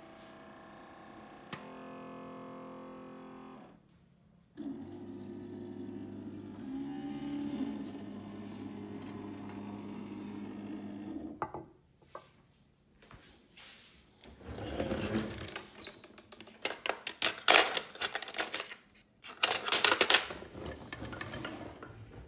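Single-serve pod coffee maker brewing into a mug: a steady pump hum that drops out briefly about four seconds in, then irregular hissing and sputtering bursts in the last several seconds as the brew cycle ends.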